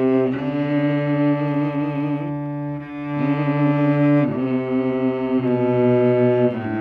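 Cello bowed in a slow run of long held notes, each changing to the next every second or two, with a slight dip in level just before three seconds in.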